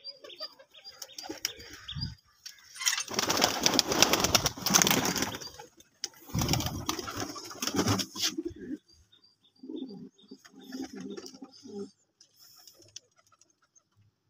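Domestic pigeons fluttering, a loud flurry of wing-flapping for several seconds in two spells, followed by low cooing near the end.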